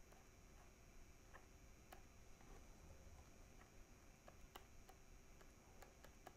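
Near silence with faint, irregular ticks, about two a second: the pen stylus tapping and lifting on a drawing tablet as short strokes are drawn.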